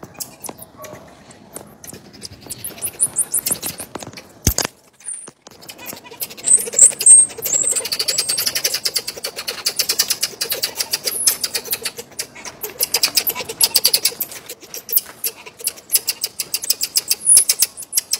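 Marmosets giving rapid, very high-pitched chirping and twittering calls, which grow denser from about six seconds in. A single sharp click comes about four and a half seconds in.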